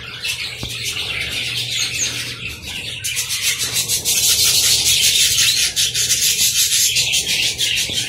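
A flock of budgerigars chattering and chirping. About three seconds in the sound grows louder and fuller, with a rushing flutter of wings as many birds take off.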